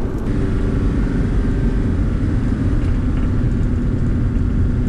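Camper van driving on a road, heard from inside the cab: a steady low engine drone and road rumble.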